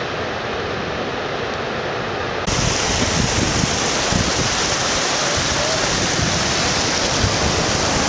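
Steady rushing of a waterfall. About two and a half seconds in it cuts to louder, brighter rushing water at the Boiling River, where hot-spring runoff pours into the Gardner River.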